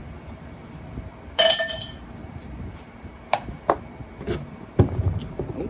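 Metal clinking while a refrigerator compressor is being taken apart: one loud ringing clink about a second and a half in, then a handful of short, sharp clicks and taps.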